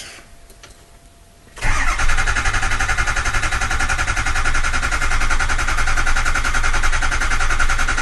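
Ford 6.0L Powerstroke V8 diesel cranking on its starter, beginning about a second and a half in, with rapid even pulses and no sign of catching. It is a hot no-start: high-pressure oil (injector control) pressure is not building while it cranks.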